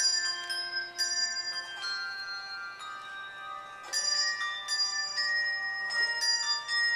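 Handbell choir ringing a melody over chords, several bells struck at a time with each note ringing on. The playing is softer for a stretch in the middle.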